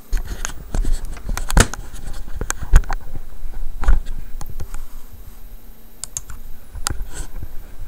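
Handling noise: irregular clicks, knocks and low thumps, with some scraping, as fingers grip and move a handheld device close to its microphone. The knocks come thick and fast for the first few seconds, then thin out to occasional clicks.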